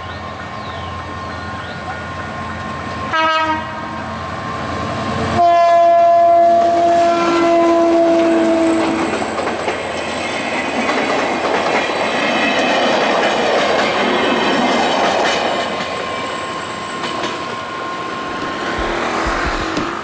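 Passenger train horn giving a short blast, then a longer blast a couple of seconds later, followed by the train passing at speed over a level crossing with its wheels clattering on the rails, the noise fading near the end.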